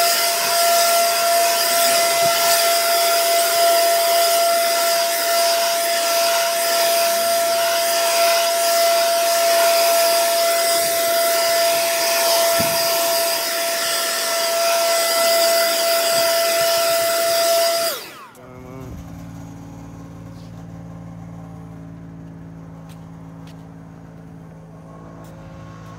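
Gas-powered handheld leaf blower running at full throttle, a loud rushing hiss with a steady high whine, blowing grass clippings off concrete. It shuts off about 18 seconds in, its whine dropping away. A quieter, steady low engine hum continues after it.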